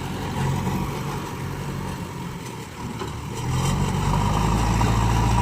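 Heavy diesel engine of earthmoving plant running steadily, getting louder about three and a half seconds in.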